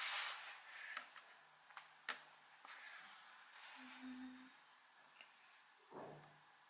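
Faint handling of a clear plastic clamshell pastry box, with a few light plastic clicks. A short low hum about four seconds in.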